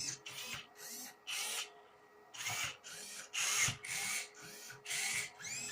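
Motors of a home-built Rubik's cube solving robot turning the cube's faces move after move: short whirring bursts about two a second, each with a brief whine that glides up and down in pitch, with a short pause about two seconds in.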